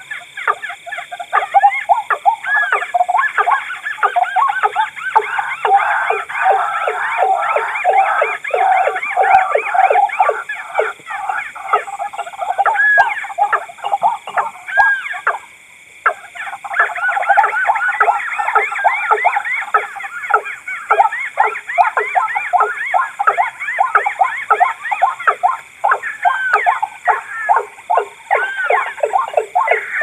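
Looped lure recording of rail calls mixed together: white-breasted waterhen, watercock and tikusan crake. It is a fast, unbroken train of short hoarse repeated notes, several a second, with one short break about halfway.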